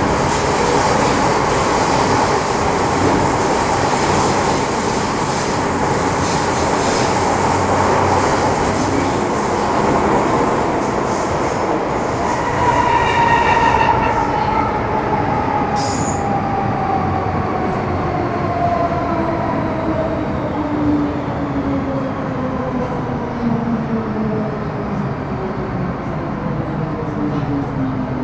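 Metro Cammell M-Train electric multiple unit running through a tunnel, heard from inside the car with steady rumbling wheel and running noise. About halfway through, the GEC GTO chopper's whine sets in and falls steadily in pitch as the train slows toward the next station.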